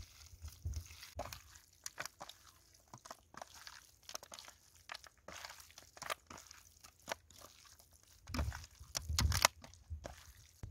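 Hands kneading raw skinned field mice with chili paste and seasoning on a stainless steel tray: irregular wet squelching and crackling of the meat and spice, louder with a few dull thumps about eight seconds in.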